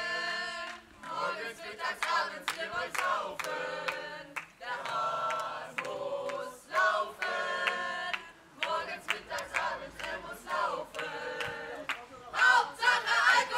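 A group of men and women singing a song together without accompaniment, in phrases with short breaks, louder near the end.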